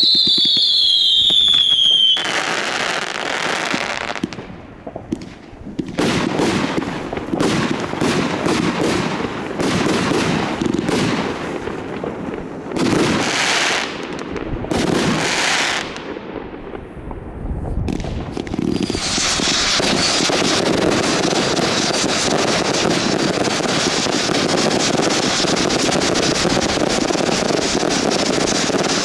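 Consumer fireworks at New Year's midnight: a whistle falling in pitch for the first two seconds, then a run of separate bangs and bursts. From about 19 seconds in, a dense, steady crackle of many fireworks going off at once.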